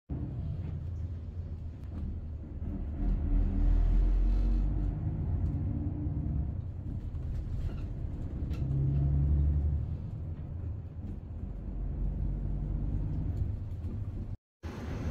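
City bus engine and road rumble heard from inside the passenger cabin while the bus drives. The engine note shifts in pitch and swells twice as it speeds up and slows. The sound cuts out for a moment near the end.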